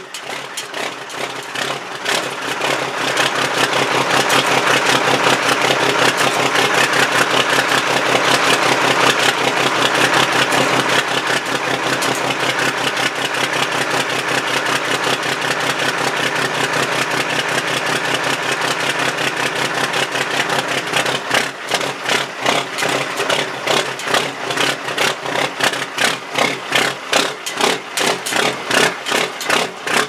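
Cummins L10 inline-six diesel running at the exhaust stack, its exhaust pulses plainly separate at idle. It grows louder and smoother a few seconds in and holds there until about two-thirds through, then drops back to the pulsing idle. This is the smoky, slightly missing low-load running that the owner suspects comes from a fault in the step timing control (STC).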